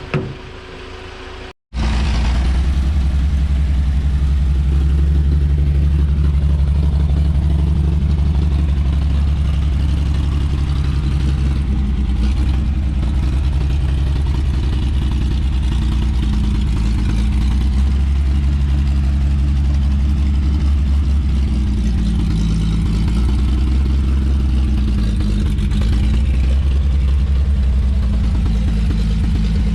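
1954 Chevrolet 3100's straight-six engine running rough, hitting and missing hard: the carburetor is worn out and needs rebuilding. The engine sound comes in abruptly about two seconds in and holds steady with small changes in speed.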